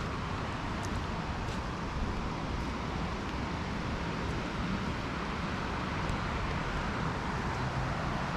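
Steady rushing noise of a fast-flowing flooded river, an even wash of sound with no change in level.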